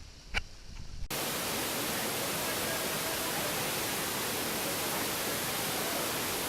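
Steady roar of a large waterfall close by, an even rushing noise that cuts in abruptly about a second in; before it, quieter open-air ambience with a brief click.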